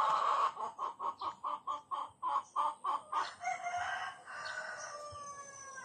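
A bird calling loudly: a fast run of about a dozen short notes, roughly four a second, then a long drawn-out call that slowly falls in pitch and fades near the end.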